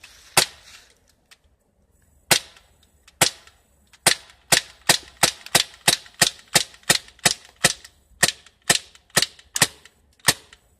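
Crosman P10 Phantom CO2 semi-automatic BB pistol firing about twenty sharp pops. There is one shot, then two more about a second apart, then a fast even string of roughly three shots a second. The pistol now fires every time because the BB magazine has been pushed fully home.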